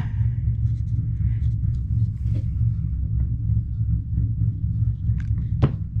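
Steady low rumble throughout, with faint rustling and small ticks as hands press reindeer moss onto a wooden birdhouse. One sharp click comes about five and a half seconds in.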